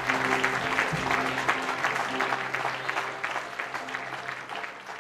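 Audience applauding, with instrumental music playing low notes under the clapping. Both fade gradually.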